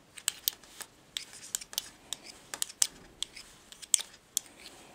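Knitting needles clicking against each other as stitches are worked by hand in garter stitch: irregular sharp little clicks, a few a second.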